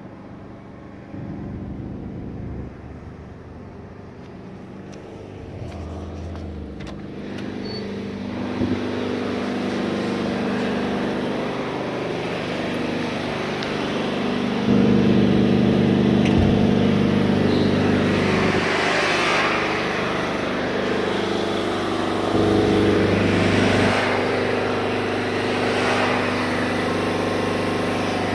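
Fire truck engines running with a steady low hum that gets louder about halfway through. Several swelling hisses come in the last ten seconds.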